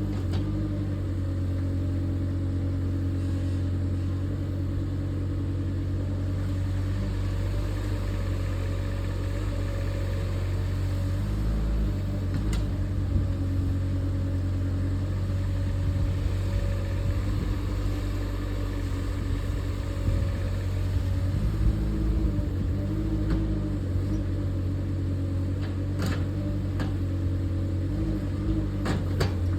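LiuGong 2-tonne mini excavator's diesel engine running steadily while digging, its pitch dipping and recovering now and then as the hydraulics take load, with a few sharp knocks near the end.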